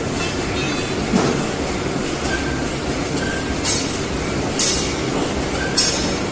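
Heavy forging hammer running in a steady mechanical rumble, with three short sharp bursts in the second half.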